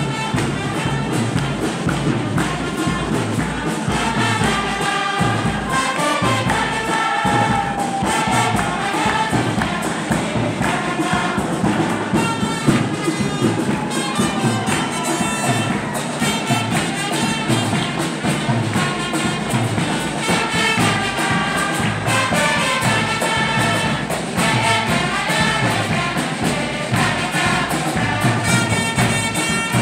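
A congregation and choir singing a lively hymn over a steady drum beat, with hand clapping.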